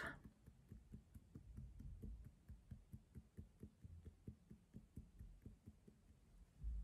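Faint, rapid fingertip tapping on both sides of the face beside the eyes (the EFT side-of-eye point): soft dull taps, several a second, keeping an even rhythm.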